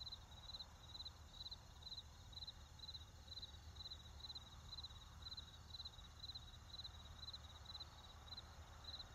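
Crickets chirping quietly: a steady, high-pitched run of short chirps, about two a second, each a quick trill of a few pulses.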